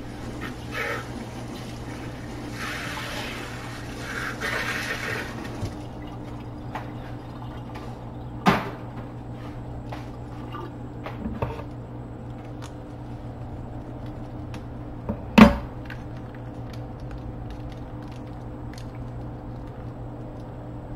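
Kitchen food-prep sounds over a steady low hum: a few seconds of running water a couple of seconds in, then two sharp knocks about seven seconds apart, the second the loudest, with light clicks and taps between them.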